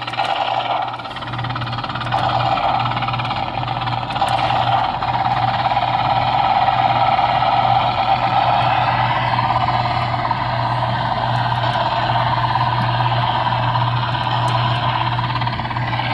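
Jolly Roger Rescue Helicopter kiddie ride running: a steady low hum under a continuous, noisy engine-like drone.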